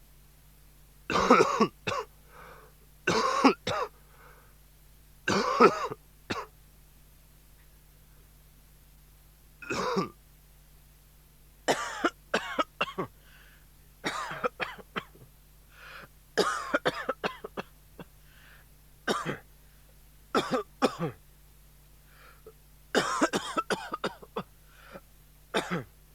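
A person coughing and clearing their throat over and over in short harsh bursts, a few at a time with brief pauses between, as a recorded novelty sound effect.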